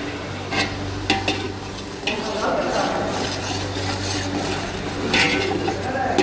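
Metal spoon stirring and scraping browned onions frying in oil in a large aluminium pot, with the oil sizzling. The spoon knocks and scrapes against the pot several times, over a steady low hum.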